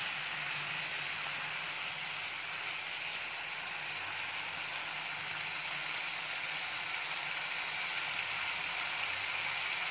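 Mutton masala frying in a pan: a steady, even sizzle.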